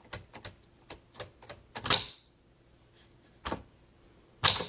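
1946 Smith Corona Silent typewriter being typed on: a quick run of light keystrokes, then a louder clunk about two seconds in, a few sparse strikes, and another loud clunk near the end.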